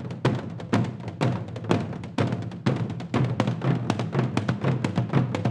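Korean traditional drums played in a fast, dense rhythm, with sharp strokes several times a second.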